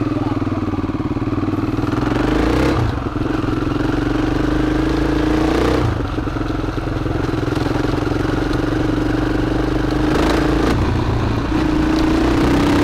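KTM LC4 supermoto's single-cylinder four-stroke engine pulling on the move, its note climbing and then dropping back at upshifts about three and six seconds in.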